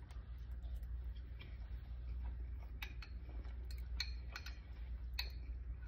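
Eating sounds: a few faint, scattered clicks, such as utensil taps and chewing, over a low steady hum.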